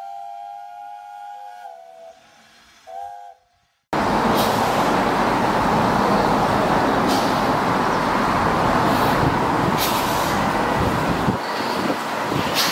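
A steam whistle sounds a steady chord, slides down slightly and stops, then gives one short second blast. After that a loud, steady rushing noise with a few sharp knocks cuts in suddenly and runs on.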